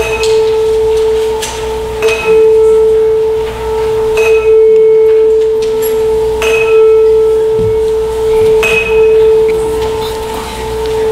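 A bell tolled at a steady pace, struck about every two seconds, with a low hum ringing on between the strikes.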